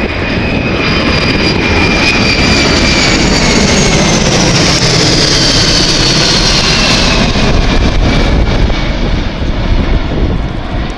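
Boeing E-4B's four General Electric CF6-50 turbofans running loud as it flies low overhead, a deep roar with a high fan whine that drops steadily in pitch as the aircraft passes over and away.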